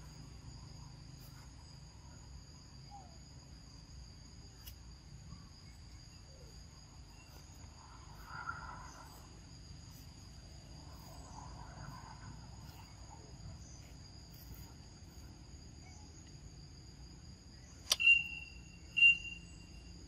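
Steady insect chorus, a constant high-pitched drone on two steady tones. Near the end, two short, sharp, high-pitched calls about a second apart stand out as the loudest sounds.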